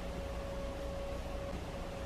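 Steady background hiss and low hum of room noise, with a faint constant tone running through it; no distinct event.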